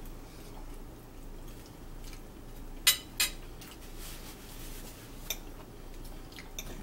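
Metal forks clinking and scraping on plates, with two sharp clinks close together about three seconds in and a few lighter taps later.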